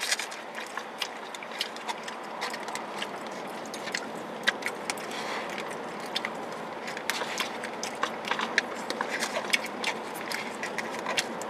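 Forks clicking and scraping against takeout food containers as the last bits of food are picked out, with some chewing; the clicks come irregularly, many small sharp ticks, over a steady background hiss.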